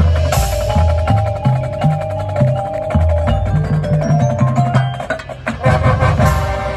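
Marching band playing its field show: winds holding chords over mallet percussion, low drum notes and quick, rhythmic clicking percussion.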